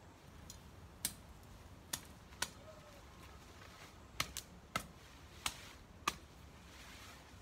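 About eight sharp snaps at irregular gaps, from hands working among garden plants, some coming in quick pairs.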